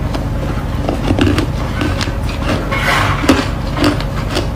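Close-miked crunching of freezer frost ('white ice') being chewed and crumbled. It comes as a run of short, sharp crackles, thickest about a second in and again around three seconds, with the loudest crunch a little after three seconds.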